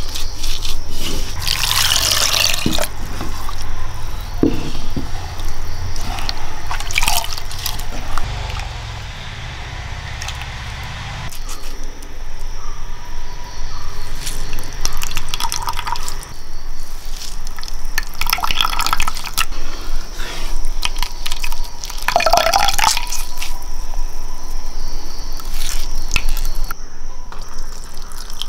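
Hands squeezing grated coconut in water to press out coconut milk, liquid dripping and splashing in repeated bursts a few seconds apart.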